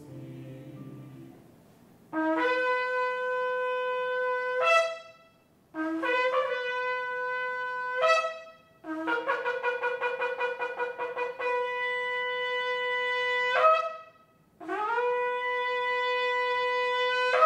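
Shofar (ram's horn) blown in four blasts: a long steady one, a shorter one, a longer one broken by a rapid pulsing, and a final long one, each scooping up to pitch and ending with a brief upward squawk.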